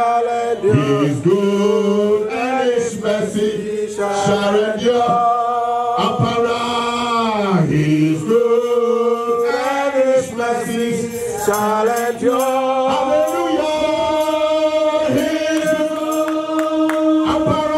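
A man singing a slow worship song in long, held notes, with other voices possibly joining in as a choir.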